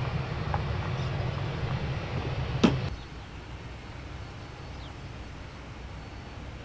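Airbus A321 jet engines giving a steady low rumble at taxi power, broken off by a single sharp click about two and a half seconds in. After that comes a quieter, steady low background hum.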